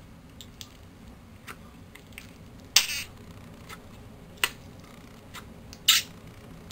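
Glow-in-the-dark Mars Mud putty pressed down with two fingers in its small plastic tub, trapped air escaping in short squelching pops: the 'farting' sound the putty makes when worked. Three sharp pops come at roughly even intervals, the first the loudest, with a few fainter clicks between.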